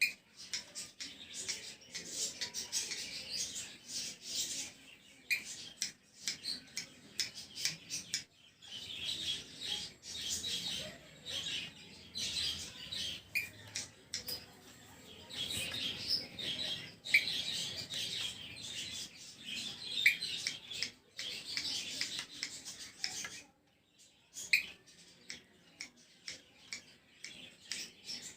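Cockatiel making a trickling chatter in long runs, broken by short sharp chirps and a few pauses, then thinning to scattered ticks near the end.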